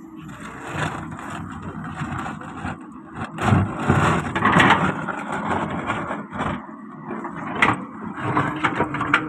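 Solar 130 wheeled excavator's diesel engine running under hydraulic load while its steel bucket scrapes and digs through stony soil against a large stone. A louder spell of grinding and spilling dirt comes about three and a half seconds in, and a couple of sharp knocks of metal on stone come near the end.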